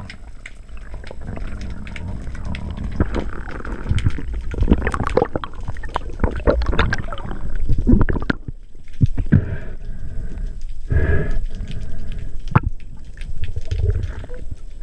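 Underwater noise heard through a camera housing on a breath-hold spearfishing dive: water moving past the camera in uneven surges, with scattered clicks, knocks and gurgles.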